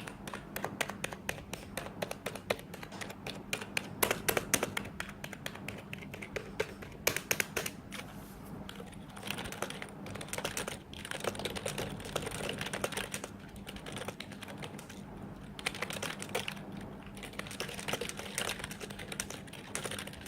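Fast typing on an i-rocks IK27 membrane keyboard: rapid runs of keystrokes with brief pauses between them.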